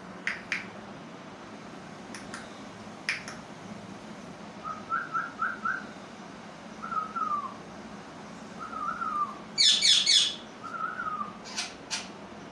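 Pet rose-ringed parakeet calling: a quick run of four short chirps, then a few short falling whistled notes, with a loud harsh squawk about ten seconds in as the loudest sound. A few sharp clicks come in the first three seconds.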